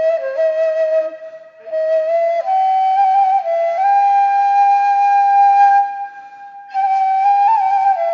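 Background music: a solo flute playing a slow melody of long held notes, with brief pauses about a second and a half in and again around six seconds.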